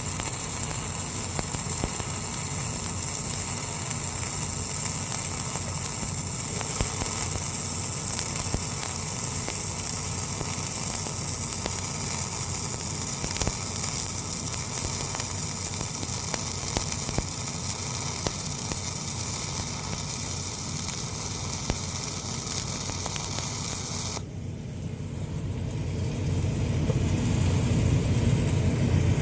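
Welding arc crackling and hissing steadily while a weld is filled, then cutting off suddenly about five seconds before the end. After it stops, a low engine-like drone remains and grows louder.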